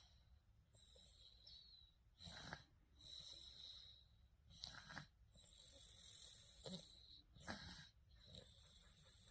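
A six-month-old baby snoring faintly in sleep: soft, breathy hissing breaths broken by a short snorting stroke roughly every two and a half seconds.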